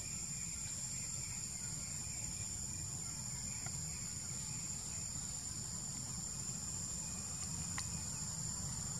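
Steady high-pitched drone of insects in the trees, one unbroken shrill note, over a steady low rumble. A faint single click sounds near the end.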